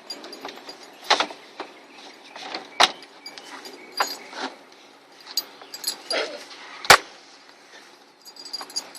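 Scattered clicks and knocks from hands working on a car's door panel and its plastic parts, with two sharper knocks, one about three seconds in and a louder one near seven seconds.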